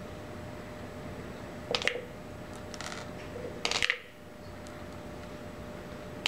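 Small hard pills dropped one at a time into a plastic tumbler, each landing with a short clatter: four drops, the last near the end.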